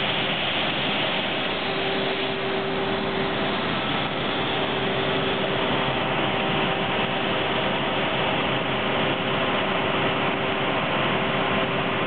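Industrial combination planer and wide-belt sanding machine running steadily: an even mechanical noise with a faint steady hum.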